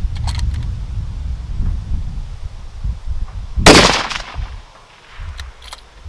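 A single .308 Remington 5R rifle shot about three and a half seconds in, its report trailing off briefly. Wind buffets the microphone with a low rumble around it.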